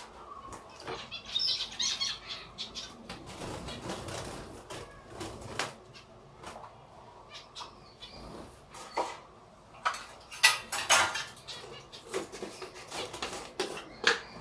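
Caged pet finches fluttering in wire cages, mixed with clicks, rattles and knocks of cage wire and feed dishes being handled. The knocks come thicker and louder in the second half.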